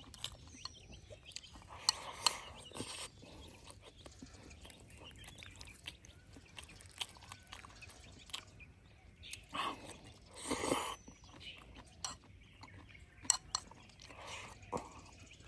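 People eating: chewing, with light clicks of chopsticks against bowls, and a couple of louder noisy stretches of eating sounds about two and ten seconds in.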